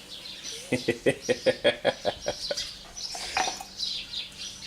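A chicken clucking: a quick run of about a dozen short calls, about six a second, lasting around two seconds, over faint bird chirping.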